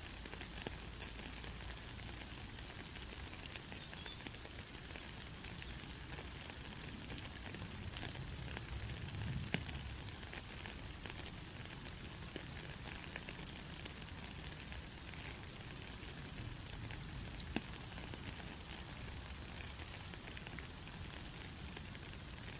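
Steady white-noise hiss with scattered faint crackles and ticks.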